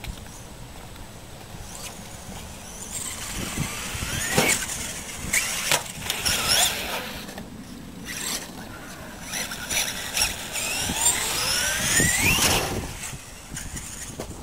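Brushless electric motor of a Traxxas E-Revo RC monster truck whining, rising and falling in pitch as it speeds up and slows, with a few sharp knocks.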